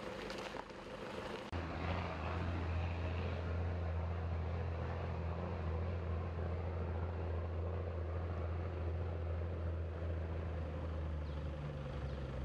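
A steady low engine hum, starting abruptly about a second and a half in, after a brief stretch of rushing noise.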